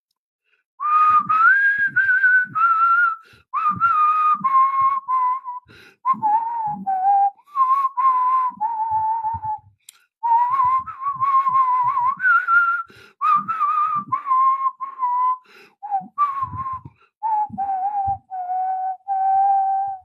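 A man whistling a tune through pursed lips: a melody of held and sliding notes in short phrases, with a brief break a little before halfway.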